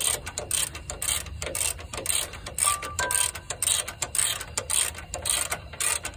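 Hand socket ratchet clicking in quick, somewhat uneven strokes as it turns the nut on a Toyota 4Runner's front differential mount.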